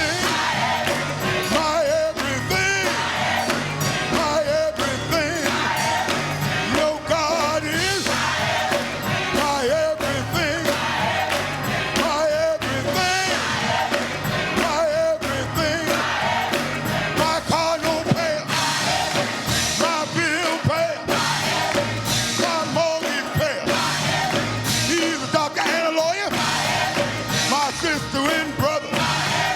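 Gospel song with voices singing over a full band, with a steady driving beat.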